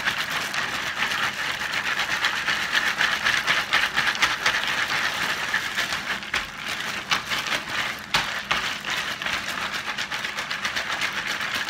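Ice and salt rattling and crunching inside a plastic zip-top bag as it is shaken hard by hand to freeze an ice cream mix in a smaller bag inside: a continuous fast clattering rattle with plastic crinkling.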